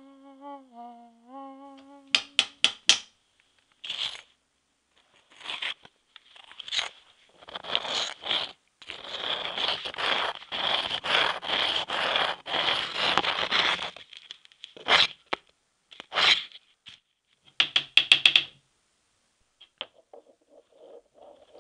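A low hummed tone with a dip in pitch, then a run of sharp clicks and rasping scrapes and tears of paper, densest in the middle, with a few sharp cracks near the end.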